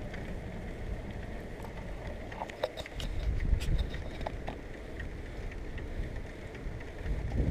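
Bicycle riding on asphalt: wind rumbling on the microphone over the tyre and road noise, gusting harder about three seconds in and again near the end, with a scattering of short clicks and rattles from the bike.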